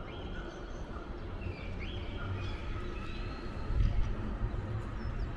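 Outdoor city-street ambience: a steady low rumble of traffic, with a few short high chirps and a louder low swell about four seconds in.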